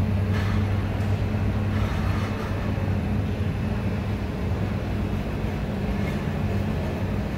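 Passenger coaches of a locomotive-hauled train rolling slowly past a station platform: a steady rumble with a constant low hum.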